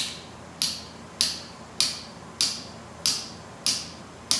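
Surgical mallet tapping the inserter of a suture anchor, driving the anchor into the glenoid bone of the shoulder socket. It gives a steady series of sharp taps, about eight in four seconds, evenly spaced.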